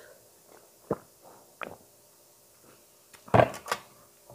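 A metal drinking mug set down on a tiled table: a loud clunk and a second knock just after, about three and a half seconds in, after a couple of softer knocks earlier.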